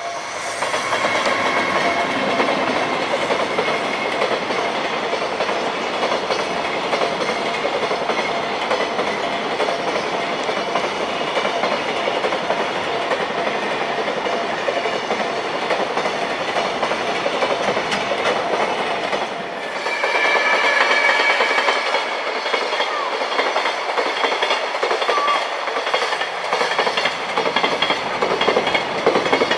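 Freight train hauled by a JR Freight EH500 'Kintaro' electric locomotive passing at high speed: a continuous rush of wheel and rail noise with the clickety-clack of wagons over rail joints. The sound dips briefly about two-thirds of the way through, then comes back brighter.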